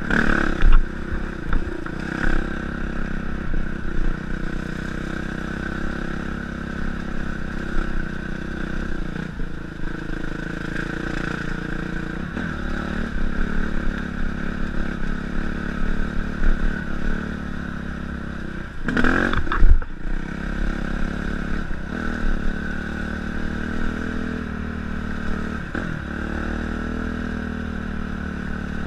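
Dirt bike engine running steadily as the bike is ridden along a rough dirt trail, with small rises and falls in revs and the chassis clattering over bumps. About two-thirds of the way through there is one loud thump.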